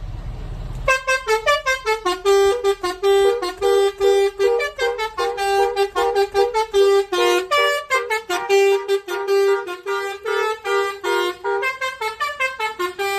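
A five-trumpet bus 'telolet' air horn plays a fast melody of short, stepping notes, starting about a second in.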